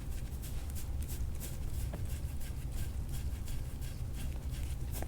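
Soft-tissue massage strokes over skin: a quick run of short, light scratchy rubs, several a second, over a steady low hum.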